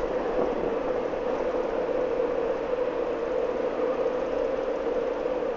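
Class 08 shunting locomotive's six-cylinder diesel engine running with a steady drone as it slowly hauls a Class 156 diesel unit along.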